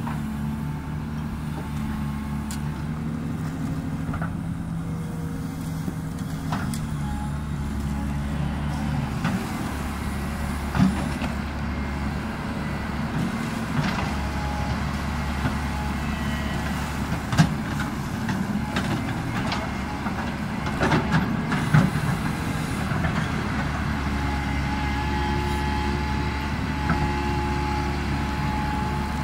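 Yutong YT210.8 crawler excavator's diesel engine running steadily as it digs and dumps gravel, with a few sharp knocks from the bucket and stones, the loudest about two thirds of the way through.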